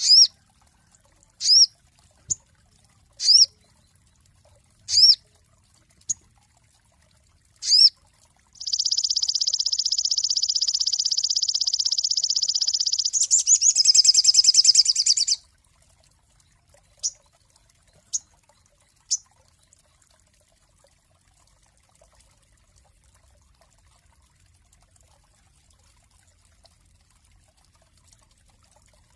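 Sogon singing: a series of sharp, high whistled notes that rise and fall, one every second and a half or so, then a long, rapid buzzing trill lasting about seven seconds that turns coarser near its end, then three short high notes.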